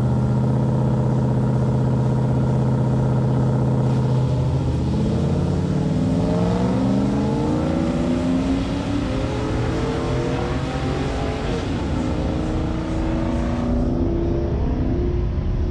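Drag-racing car engines at full throttle. A steady high engine note holds for about four seconds, then several rising pitches sweep upward as the cars accelerate down the strip. A steadier, lower engine note follows near the end.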